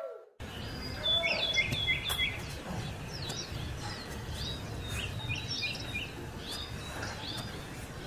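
Small birds chirping in short, quick phrases that recur every few seconds, over a steady low background rumble.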